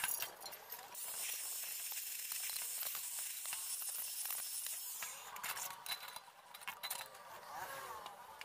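Small angle grinder with a thin cutting disc cutting through the wall of a stainless steel pot, a steady hissing grind that weakens and wavers in the second half.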